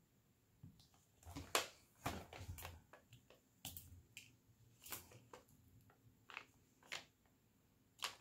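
Diamond painting drill pen picking up and pressing small resin drills onto the sticky canvas: soft, irregular clicks and taps. The taps cluster between about one and three seconds in, and there is a sharper click near the end.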